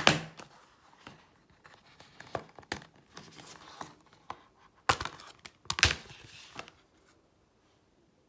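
Plastic Blu-ray box-set packaging being handled: crinkling and rustling with sharp clicks and snaps, the loudest at the start and twice about five and six seconds in, then it goes quiet.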